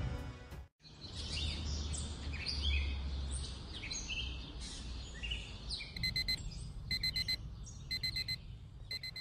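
Small birds chirping over a low outdoor rumble, then from about six seconds in a digital alarm clock beeping in rapid bursts, about one burst a second.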